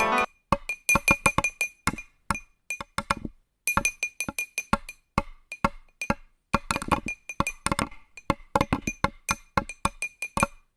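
Sparse percussive music made of short, sharp wood-block-like clicks in irregular clusters, each with a brief ringing tone. A melodic mallet-instrument passage cuts off just as it begins.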